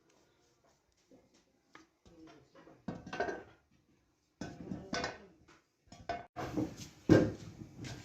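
Metal parts clattering and knocking as they are handled, starting about two seconds in and getting busier, with the loudest clank near the end.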